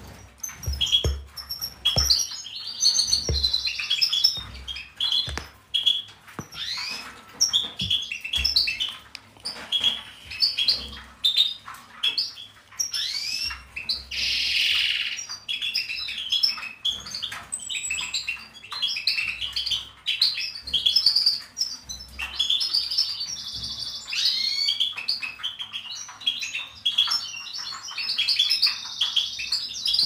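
Many small cage birds chirping and twittering together in quick, short calls, some sweeping up and down in pitch. A few sharp clicks and low knocks from hand tools on the bench are heard among them.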